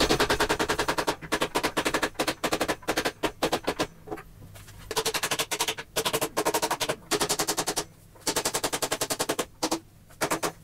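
Hammer knocking glued pallet-wood leg and rail joints together in rapid runs of blows, about ten a second, with short pauses between the runs.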